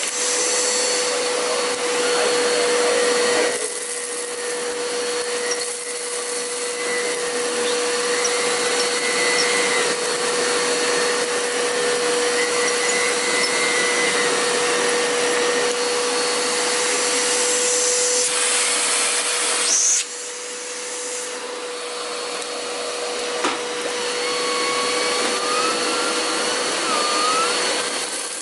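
Vacuum cleaner running with a Perfect power nozzle during a carpet pickup test: a steady motor whine over rushing air. The level drops a little twice, once a few seconds in and again about two-thirds of the way through.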